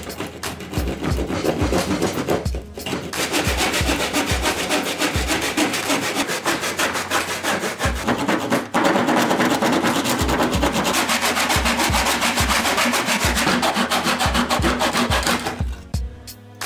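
Small hand saw cutting through a clamped board of scrap wood with fast back-and-forth strokes, pausing briefly twice. The sawing stops near the end as the piece comes free.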